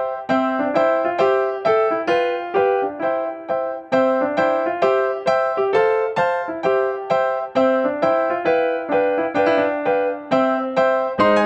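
Background music: a bright electric-piano melody of quick, evenly spaced notes, about three or four a second, over a simple lower accompaniment.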